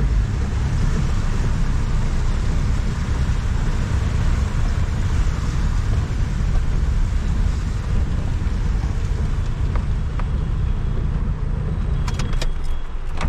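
A vehicle driving along a road: steady engine and road noise, heaviest in the low end, with a few sharp clicks near the end.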